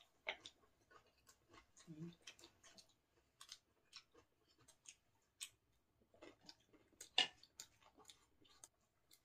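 Quiet chewing and mouth smacking of people eating bread, with scattered small clicks and taps of chopsticks; the sharpest click comes about seven seconds in.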